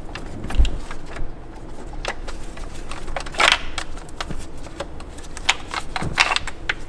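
Handling noise from a camshaft position sensor's wire being fished through a BMW M54 engine bay by a gloved hand: scattered clicks, taps and rustles of the cable and plastic parts. There is a low bump about half a second in and a louder scrape about halfway through.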